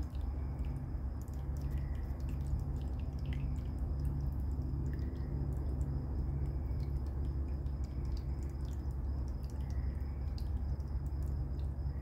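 Summer night ambience: a steady low hum, with a continuous high trill of night insects over it. Scattered faint clicks and a soft short call about every three seconds can also be heard.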